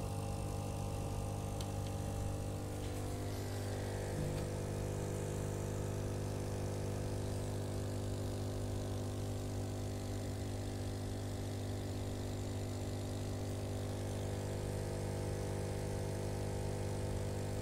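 Steady mains-powered buzz of aquarium equipment, most likely the air pump driving the bubble stream: an even, unchanging hum with a low fundamental and many overtones.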